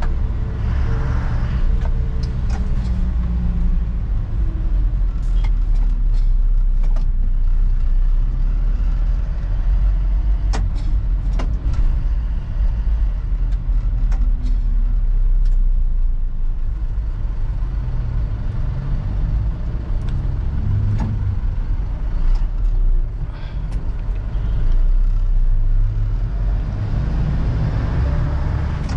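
Inside the cab of a moving Isuzu NLR light truck: the diesel engine running under way with road noise, its pitch shifting as speed changes, and a few sharp clicks.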